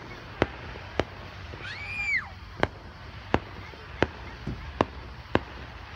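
Fireworks going off: a string of sharp bangs at irregular intervals, roughly one every half second to second, with a high whistle that rises and falls about two seconds in.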